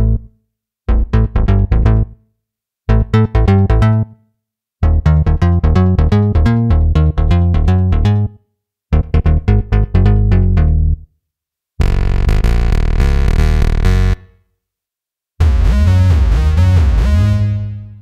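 Cherry Audio Quadra software synthesizer, an emulation of the ARP Quadra, playing a deep bass preset. It plays short runs of quick staccato bass notes split by brief gaps. In the second half come two longer held notes, and the last one has a sweeping tone that fades away.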